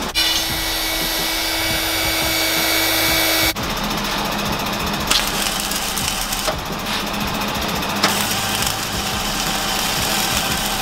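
Wire-feed welder arc crackling steadily as steel rebar is welded into a cage, the sound changing abruptly about three and a half and eight seconds in.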